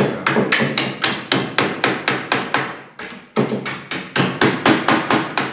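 Claw hammer striking, tapping carriage bolts home through the blocks of a wooden arch: two quick, even runs of blows, about four a second, with a short break about three seconds in.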